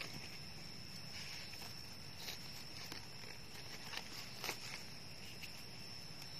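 Faint rustling and a few light clicks as hands work in dry leaf litter and handle freshly picked Amanita egg mushrooms, over a thin steady high-pitched tone.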